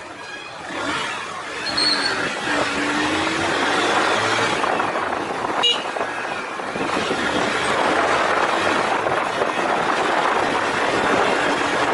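Motorcycle running on the move, its engine note rising briefly early on, under a steady rush of wind and road noise; a single sharp knock about six seconds in.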